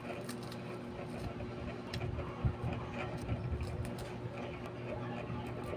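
Close-up chewing and crunching of a chocolate biscuit: soft irregular mouth thumps with small crisp clicks, over a steady low hum.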